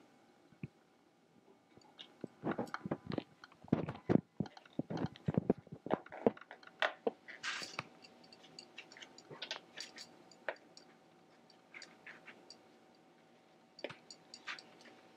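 Rattan reed being forced through tightly woven reed, creaking and crackling as it rubs under the weavers: a dense run of crackles for several seconds, then sparser clicks. The reed is binding and not sliding easily.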